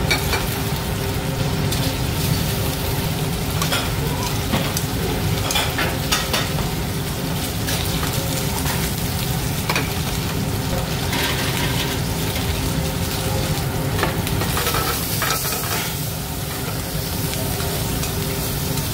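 Pieces of octopus sizzling as they sear in a stainless steel sauté pan over a high gas flame, with occasional clinks of metal tongs against the pan as they are turned. A steady low rumble runs underneath.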